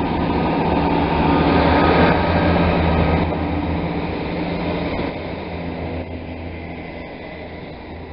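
GWR Class 158 diesel multiple unit's underfloor diesel engines droning as the train passes close by. It is loudest about two seconds in, then fades as the train moves away.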